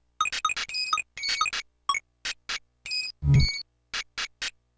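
Amiga tracker soundtrack sequenced in OctaMED: short, clipped sampled notes with dead silence between them, and a heavier low hit about three seconds in.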